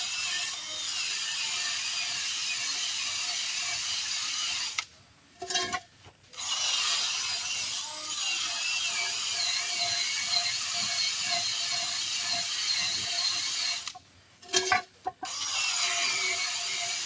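Cordless power tool running, scrubbing the bead seat of a wheel rim clean, with a wavering motor whine and two short stops partway through.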